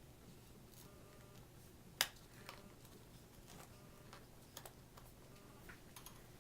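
Faint clicks and taps of a small screwdriver and screws on a MacBook's memory cover as its screws are put back in, with one sharp click about two seconds in and a few lighter ticks after.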